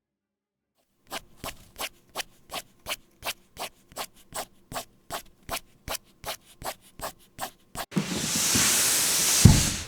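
About twenty short rubbing or scraping strokes at roughly three a second, like something being scrubbed or brushed back and forth. Near the end comes a loud hissing noise, with a low thump just before it stops.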